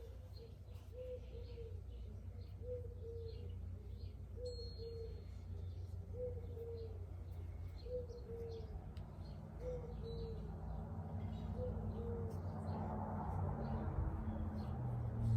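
A dove cooing a short two-note phrase over and over, about every second and a half, then falling silent near the end, with faint high chirps of other birds and a low steady rumble. A soft rustling swells in the last couple of seconds.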